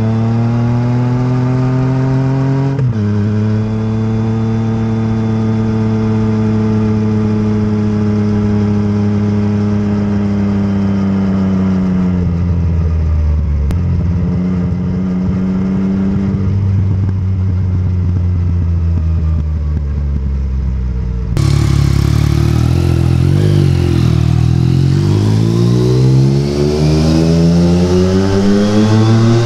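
Yamaha XSR900's three-cylinder engine heard up close at the exhaust while riding. The note drops sharply at an upshift about three seconds in, holds steady at cruise, and falls away twice as the bike slows. Near the end the sound switches to a roadside recording, where the engine note dips briefly and then climbs steadily as the bike accelerates.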